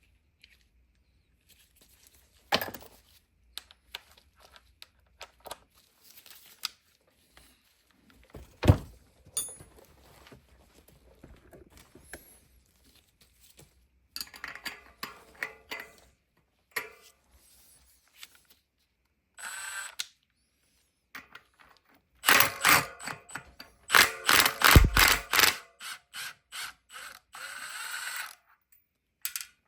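Metal tools clicking and knocking on a bicycle rear hub as the axle is being worked out, with one sharp knock about nine seconds in. Near the end come a few seconds of fast, loud mechanical rattling.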